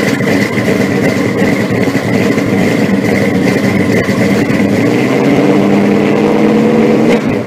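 Loud car engine running steadily, dropping away right at the end.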